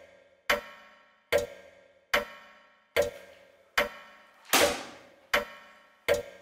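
Clock ticking, one tick about every 0.8 seconds, each tick carrying a short ringing tone that fades before the next. About two-thirds of the way through, a louder hissing swoosh falls away over half a second.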